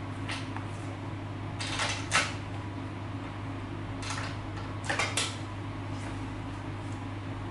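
A few short clunks and rustles of a saxophone and its case being handled and got ready, spread over the first five seconds, over a steady low hum.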